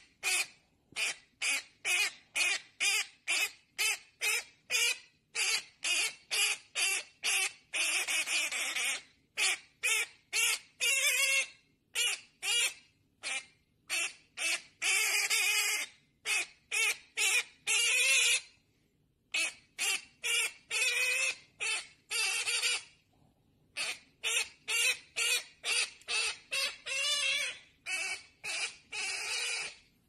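A conure calling over and over in short, harsh screeches, about two a second. A few longer screeches come in between, with brief pauses here and there.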